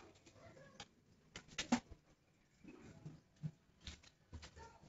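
Scattered light clicks and scrapes of hand-held filler spreaders being wiped and knocked against each other, the sharpest click a little under two seconds in.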